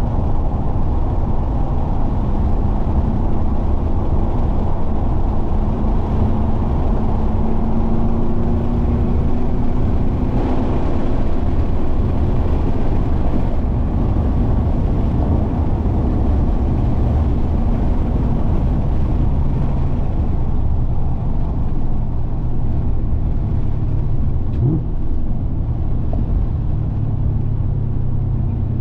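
Chevrolet Camaro ZL1 1LE's supercharged 6.2-litre V8 running at track speed under heavy wind and road rumble. Its note climbs gradually in the first half and runs lower and steadier in the second half.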